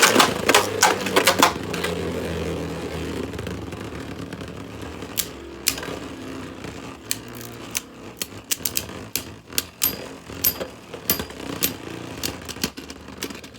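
Two Beyblade spinning tops battling in a plastic stadium: a quick burst of clashing clicks at the start, a steady spinning whir that fades over several seconds, then scattered sharp clicks as the tops knock against each other and the stadium.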